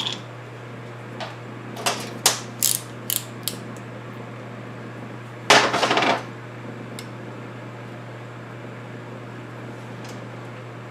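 Tools and small parts handled on a workbench while preparing to solder: a few light clicks and taps, then one louder clatter lasting under a second about five and a half seconds in, over a steady low hum.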